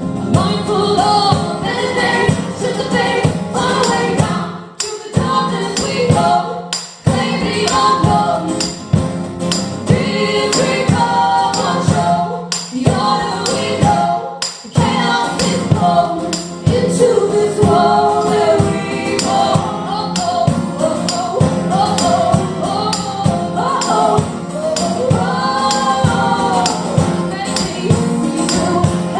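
Live band performing a song: singing over the instruments and a steady percussion beat, with short breaks about five, seven and fourteen seconds in.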